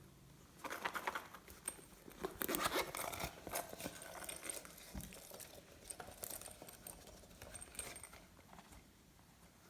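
Hands squishing and kneading glossy slime: a run of wet, sticky clicks and crackles, busiest in the first few seconds and thinning out after.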